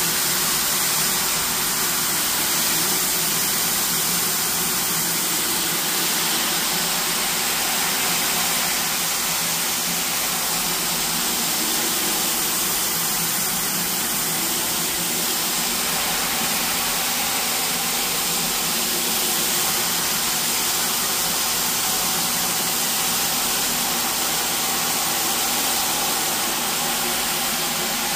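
A rug-cleaning machine running steadily, a constant motor noise with a hiss.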